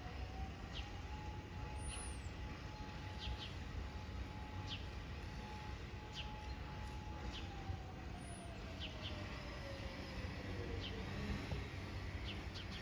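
Federal Signal Modulator 4016 fire siren sounding for an emergency call. Its tone rises at first, holds one steady pitch for several seconds, then winds down in pitch and fades about eleven seconds in. Birds chirp over a low background rumble.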